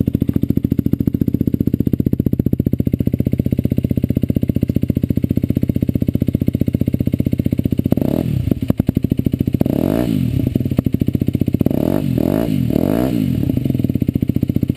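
Derbi DRD 125 SM's 125 cc single-cylinder engine on a Turbokit Road X aftermarket exhaust, idling steadily. About eight seconds in it is revved in a series of sharp throttle blips, each rising and falling in pitch, then it drops back to idle near the end.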